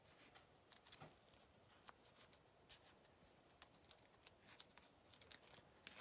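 Near silence, with faint scattered rustles and light ticks from hands smoothing a plastic adhesive stencil transfer down onto a cutting mat.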